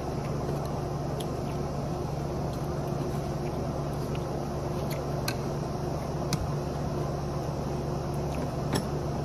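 Steady low mechanical hum from a running machine, with a few short sharp clicks, the loudest about six and a half and nine seconds in.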